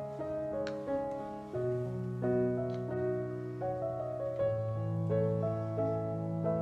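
Background instrumental music: a slow keyboard melody over held bass notes.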